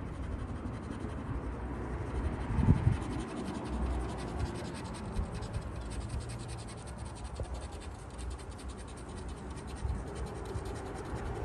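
Rapid, continuous scratching at the latex coating of a lottery scratch-off ticket as the caller cards are rubbed off, with one dull knock almost three seconds in.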